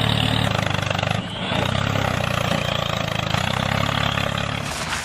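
Engine idling steadily, with a brief dip about a second in and a change in its sound near the end.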